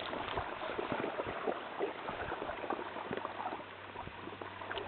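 Water gurgling and lapping against the side of an inflatable kayak, with many small irregular ticks and taps.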